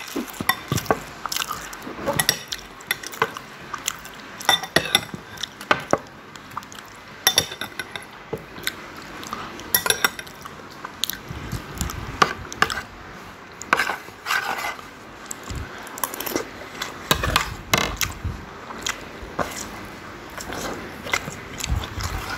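Close-miked mukbang eating sounds: a metal spoon clinking and scraping on a plate as rice is scooped, with mouth sounds of chewing rice and chicken soto.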